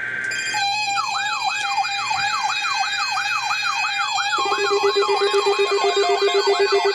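Weather alert radios sounding their alarms as a severe thunderstorm watch comes in: a fast up-and-down siren warble at about four sweeps a second. A low steady alarm tone joins about four seconds in.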